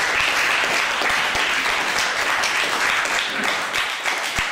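An audience clapping steadily, the applause thinning out near the end.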